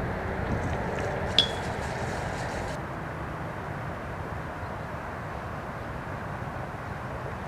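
A disc hitting a metal disc golf basket: a sharp metallic ping about a second and a half in, inside a light chain jingle that dies away by about three seconds. After that only steady outdoor background noise remains.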